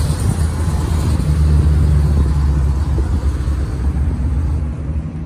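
Box truck's engine idling close by: a steady low rumble that eases off a little near the end.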